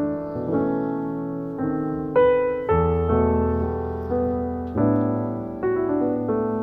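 Background music: a slow, soft piano piece, notes struck one after another about every half second to second and left to fade.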